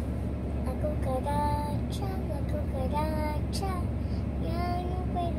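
A voice singing a wordless tune in held and sliding notes, over the steady low hum of a car cabin.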